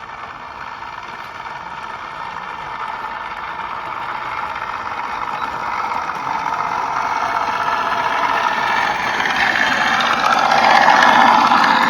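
Radio-controlled P-51D Mustang model aircraft's engine sound, a steady mechanical running noise that grows steadily louder.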